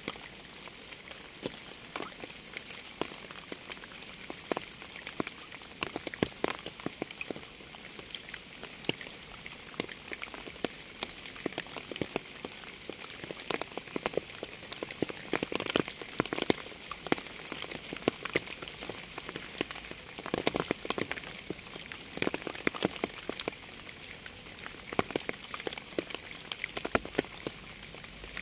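Rain falling steadily, with a soft hiss and many close, separate raindrops tapping irregularly on a surface, in denser clusters now and then.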